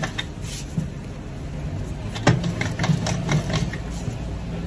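Wooden rolling pin knocking and clacking on a wooden board as flatbread dough is rolled out, a scatter of sharp knocks, the loudest about two seconds in, over a steady low machine hum.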